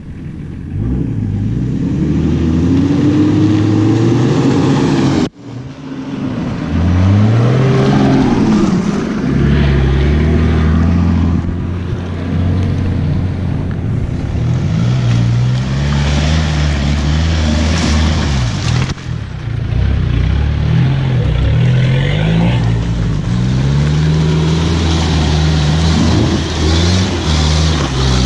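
Four-wheel-drive engine revving up and down, its pitch rising and falling again and again. The sound cuts out briefly about five seconds in.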